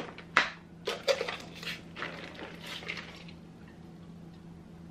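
Plastic container of grated cheese handled and shaken out over a plate: a string of light clicks and taps over the first three seconds or so, then only a faint steady low hum.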